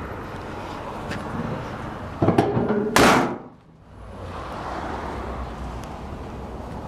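The hood of a 1950 Chrysler Crown Imperial being lowered and slammed shut: a brief pitched creak as it comes down, then one loud slam about three seconds in.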